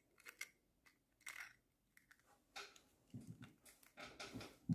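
Faint, scattered clicks and light scrapes of broken eggshell halves being handled as an egg yolk is passed back and forth between them to separate it from the white.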